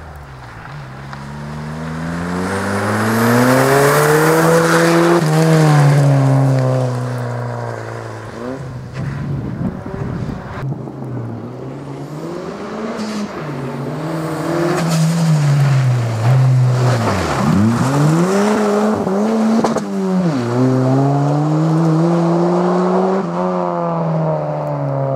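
Mazda 323 GTX rally car's turbocharged four-cylinder engine, driven hard on a loose, snowy stage. The engine note repeatedly climbs and drops as the driver accelerates, shifts and lifts, with the pitch falling sharply as it passes.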